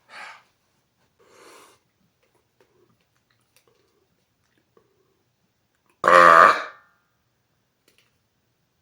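A man's single loud, deep burp, less than a second long, about six seconds in, after two faint short sounds. It is deliberately forced and comes out solid.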